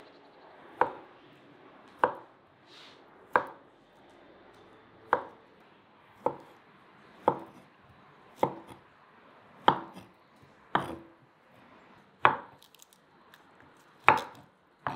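Kitchen knife cutting through beetroot into a wooden cutting board, about a dozen single, unhurried strokes roughly a second apart.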